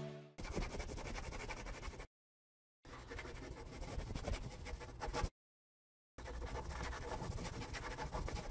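Marker pen scratching as it writes, in three stretches of about two seconds each with a second or so of silence between them.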